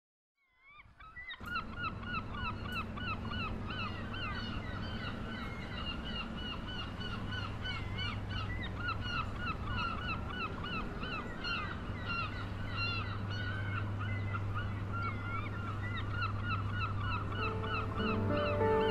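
A flock of birds calling, many short harsh overlapping calls from about a second in, over a steady low city rumble.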